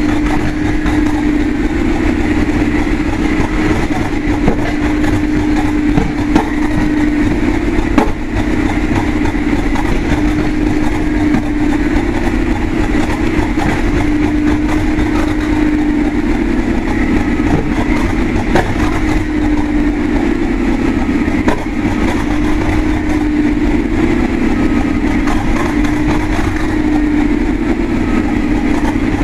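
English Electric 12CSVT V12 diesel engine of Class 37 locomotive 37175 idling steadily just after a cold start, with a steady low hum.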